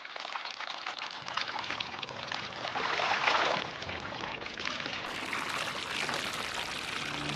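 Clothes being washed by hand in water: continuous irregular sloshing and splashing.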